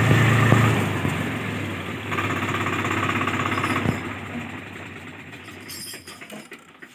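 Mahindra Yuvo 575 DI tractor's four-cylinder diesel engine running, loudest in the first second and then gradually getting quieter toward the end.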